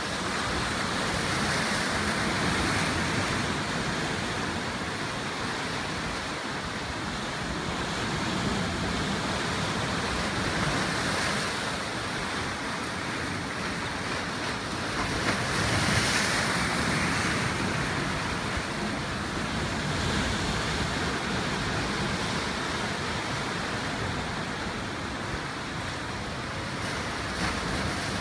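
Ocean surf breaking on a rocky shore, a steady rush that swells and eases every few seconds.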